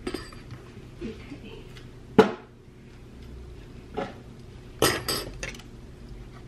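Kitchen handling noises: a single sharp knock about two seconds in, a faint tick near four seconds, and a brief cluster of light clicks and rustling about five seconds in, as bananas are handled over a stainless steel mixing bowl on the counter.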